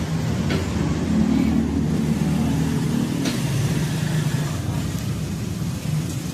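Small motorcycle engine running, its pitch lifting slightly and settling again, with two sharp clicks.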